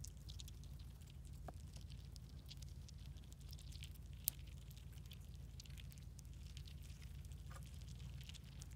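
Chipmunks nibbling and cracking black sunflower seeds in a cupped hand: faint, irregular crackling and tiny ticks over a steady low rumble, with one sharper click about four seconds in.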